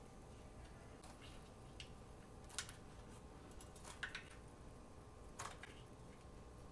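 A few soft clicks and taps, four or five spread a second or so apart, as kebabs are turned over by hand on a baking pan, over a faint steady hum.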